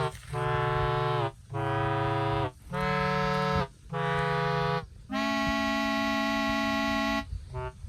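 Music: sustained reedy chords, each held about a second with short breaks between them, then one longer held chord for about two seconds, followed by short clipped notes near the end.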